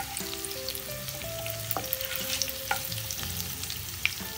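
Curry leaves, cumin and fenugreek seeds, green chillies and sliced ginger sizzling in hot oil in a nonstick pan, a steady hiss with scattered sharp crackles and pops, stirred with a wooden spatula.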